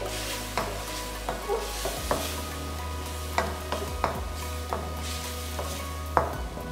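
Wooden spatula stirring diced chicken and peppers in a wok, with a steady sizzle of stir-frying. The spatula knocks and scrapes against the pan at irregular moments, about one or two a second, the loudest near the end.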